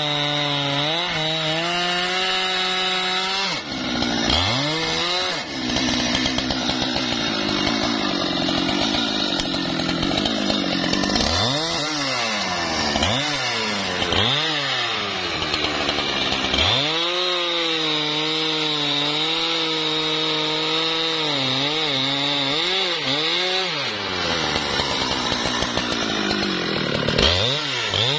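Husqvarna 395 XP two-stroke chainsaw cutting through wood, its revs rising and falling over and over as the operator works the throttle. There is a long stretch of steady cutting under load about four seconds in, and another shorter one near the end.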